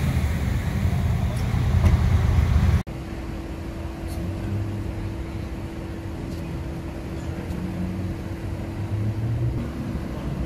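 Ford Mustang Bullitt's V8 running loud and deep, cut off abruptly about three seconds in. After the cut comes quieter city-street traffic noise with a steady hum.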